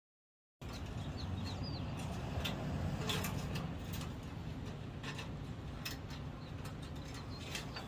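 Light clicks and rustles of a mechanic's wire being worked through the pickup's bed rail and fender, over a steady low outdoor rumble, with a few short bird chirps early on.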